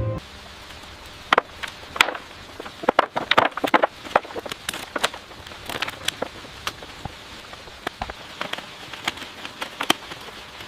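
Irregular sharp knocks and clicks over a steady hiss, several of them loud, spaced unevenly.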